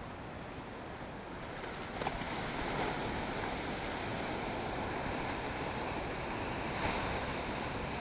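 Ocean surf washing on the shore, with wind buffeting the microphone. The wash swells a little about two seconds in and again near the end.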